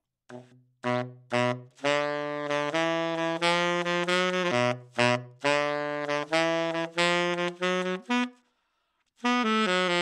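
Tenor saxophone with a 3D-printed mouthpiece playing a phrase of low, separately tongued notes, breaking off about eight seconds in and starting a new phrase a second later.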